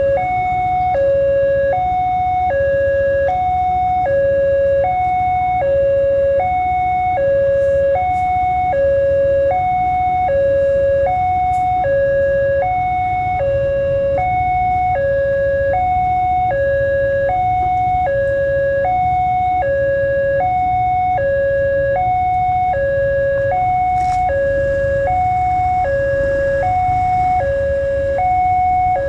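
Railway level-crossing warning alarm sounding continuously: a two-tone electronic chime, high and low notes alternating evenly, each about two-thirds of a second long, over a low rumble.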